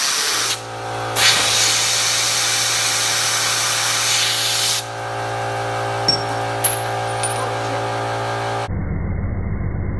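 Compressed air hissing from an air-compressor blow nozzle aimed at a fidget spinner to spin it up, in two long blasts, with a steady hum underneath. About a second before the end, the sound changes abruptly to a duller buzz.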